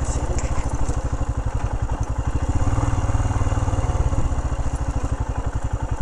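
Royal Enfield Himalayan's single-cylinder engine running at low revs with a rapid, even pulse as the motorcycle rolls slowly up to a stop.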